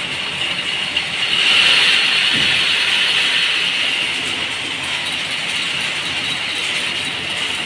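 Steady mechanical clatter of workshop machinery running, growing a little louder about a second and a half in.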